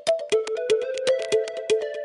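Background music: an upbeat electronic track with a fast, steady percussive beat and short plucked synth notes.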